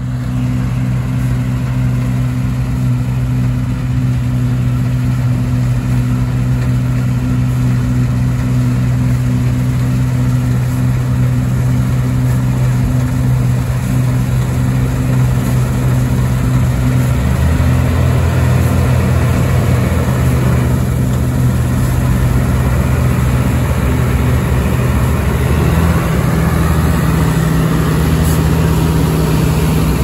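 New Holland TX68 Plus combine harvester, with its 310-horsepower Iveco engine, running steadily under load while harvesting barley, together with a tractor running alongside. A second, lower engine note joins about halfway through.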